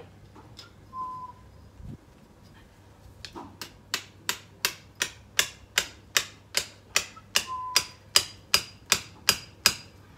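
Hammer strikes on a metal plant support, driving it in: a steady run of about twenty sharp blows, roughly three a second, each with a brief metallic ring, starting about three seconds in.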